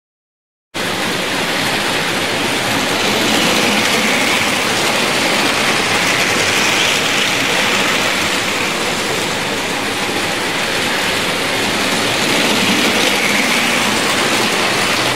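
OO gauge model train running round a layout: a steady noise of the motor and wheels on the track that starts suddenly and swells several times as the train comes round close.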